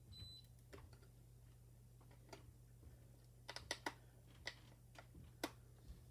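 Faint, scattered small clicks and taps of a screwdriver and wire ends being worked at an alarm keypad's screw terminals, with a quick run of sharper clicks about three and a half seconds in. A brief high beep sounds right at the start.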